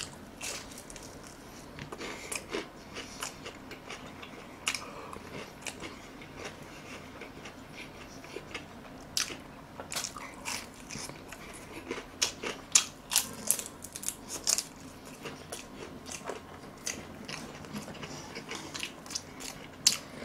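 Close-miked biting and chewing of breaded fried shrimp cutlet: crisp crunches of the coating between quieter chewing, with the crunches thickest about twelve to fifteen seconds in.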